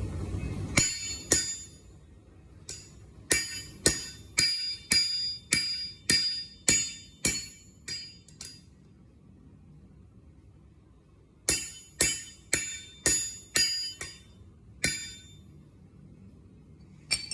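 Hammer striking steel on an anvil, each blow ringing with a bright metallic tone: two quick blows, then a run of about ten at roughly two a second, a pause of a few seconds, another run of about seven, and one last blow near the end. A low rumble cuts off just before the first blow.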